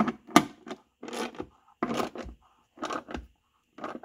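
Hand tool working the steel door striker bolt on a Lincoln Town Car door pillar as the striker is adjusted: a run of short rasping, scraping strokes, about two a second.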